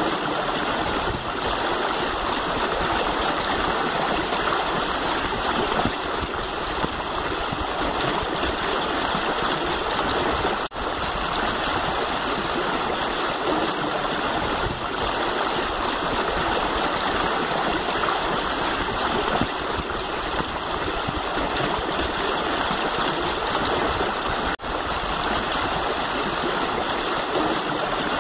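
Shallow river running over rocks: a steady, even rush of flowing water, briefly breaking off twice.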